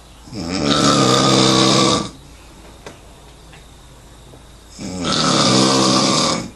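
A sleeper snoring loudly: two long, buzzing snores about four and a half seconds apart, each lasting close to two seconds.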